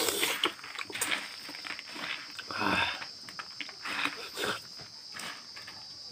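Hand mixing puffed rice with ghugni and crumbled chop on a banana leaf: irregular rustling and crackling of the dry puffed rice, with a longer scrunch near the middle, over a steady high-pitched whine.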